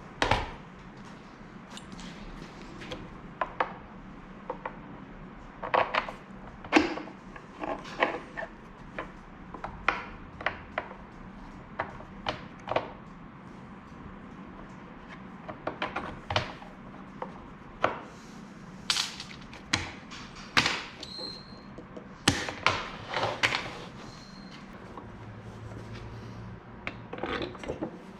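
Irregular knocks, taps and clunks of wooden blocks and hand tools being handled and fitted together during bench assembly of a bolted wooden mount.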